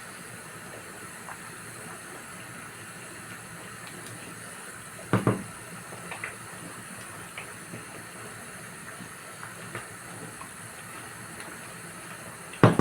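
Pot of stew simmering on the fire, a steady low bubbling with small pops. A sharp double knock comes about five seconds in, and near the end quick metallic clattering of pot and lid.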